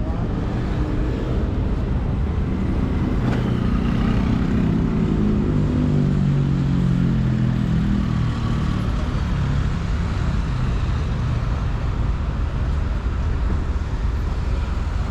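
Road traffic over a steady low rumble. A motor vehicle's engine grows louder about three seconds in and passes by, its pitch falling slightly, then fades after about nine seconds.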